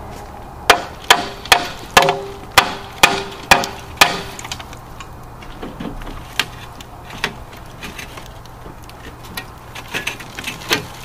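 About eight hammer blows, roughly two a second, on the metal of an old MCI MC-9 bus radiator, each ringing briefly: the old core is being bent up to free it from the radiator housing. A few lighter knocks and some metal clatter follow.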